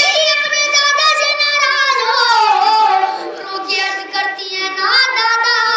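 A boy singing a noha, a Shia mourning lament for Imam Hussain, solo into a microphone. He holds long notes; the melody sinks about two seconds in and climbs again near the end.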